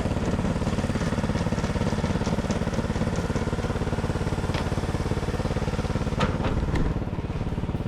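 A small engine running steadily at a constant speed, with a couple of short knocks about halfway and near the end.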